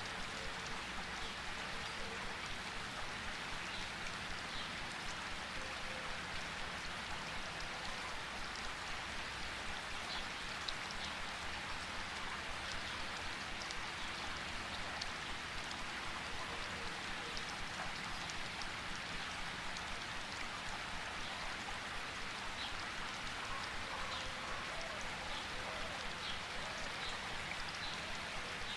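Steady rainfall, with a constant hiss of rain and scattered individual drops ticking on surfaces.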